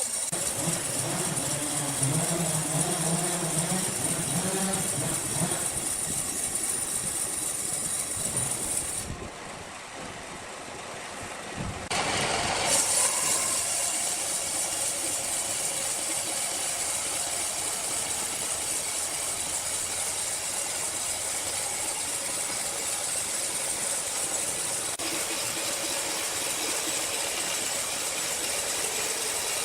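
Sawmill machinery running steadily, a continuous mechanical noise with a high hiss, briefly quieter and duller about a third of the way in.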